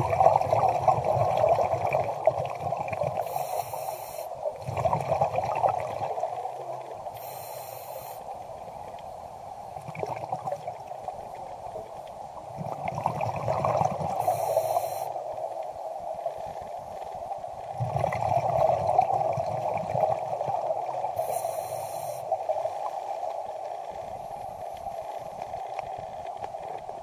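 Muffled underwater water noise picked up by a submerged waterproof camera, a steady dull wash with low rumbling swells that rise and fade every few seconds. A short high hiss cuts in four times.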